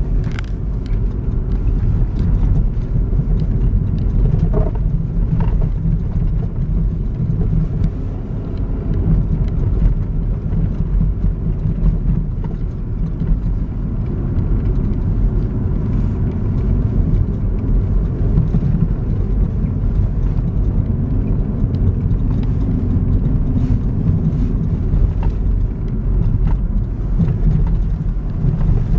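Truck driving on a snow-covered road: a steady low rumble of engine and tyres, with occasional faint ticks.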